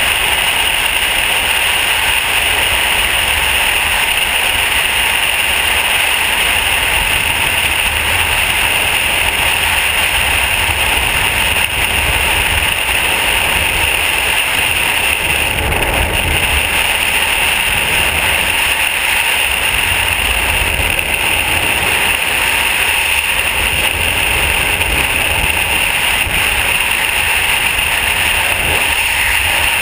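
Freefall wind rushing over a helmet-mounted camera's microphone during a skydive, loud and steady.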